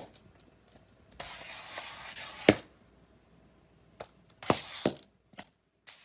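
A cat's plastic cone collar knocking and scraping on a tiled floor: several sharp knocks, the loudest right at the start and about halfway through, with a scraping rustle between them.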